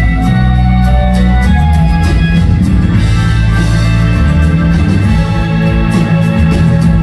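Live rock band playing, with acoustic and electric guitars, Hammond organ, bass and drums, loud and continuous.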